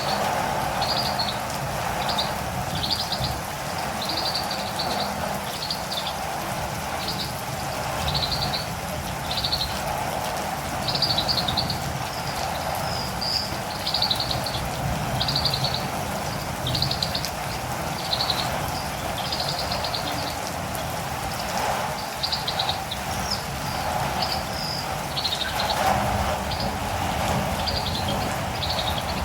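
Catirumbava (olive-green tanager) calling over and over in short high chirps, about one or two a second, against steady rain.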